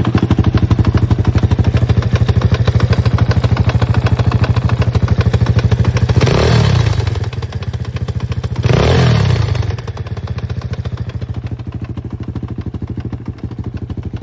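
A pit bike's single-cylinder four-stroke engine idles with a persistent knock that remains after the valves were adjusted and the centrifuge, starter clutch and gears were checked. The owner suspects the piston pin or the valve rocker arms. The throttle is blipped twice, a few seconds apart, and the revs rise and fall back to idle each time.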